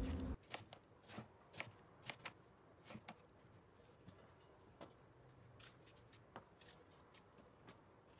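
Kitchen knife slicing peeled eggplant into rounds on a wooden cutting board: faint, irregular cuts and taps, about two a second at first, then sparser.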